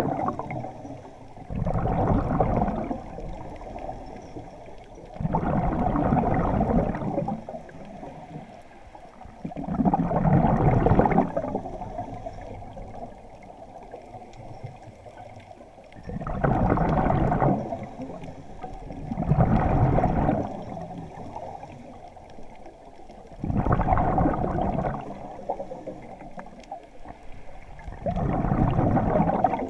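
Scuba diver's exhaled air bubbling out of the regulator underwater in a steady breathing rhythm: a loud gurgling rush of bubbles about every three to four seconds, each lasting a second or so, with one longer pause partway through.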